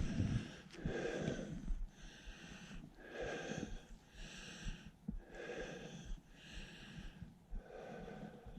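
A man breathing hard close to the microphone: a steady run of about four deep breaths in and out, each breath hissy and wheezy.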